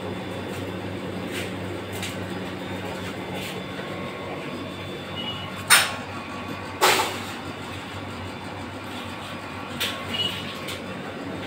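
Ice candy machine's refrigeration compressor running with a steady low hum. Two sharp knocks come about six and seven seconds in, with a few fainter clicks near the end.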